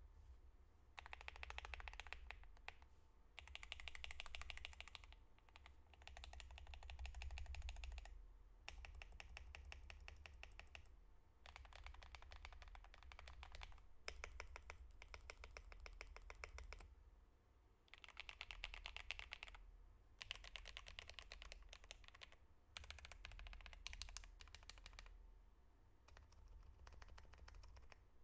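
Mechanical keyboard fitted with Akko Radiant Red linear switches being typed on in runs of fast keystrokes, with short pauses between runs.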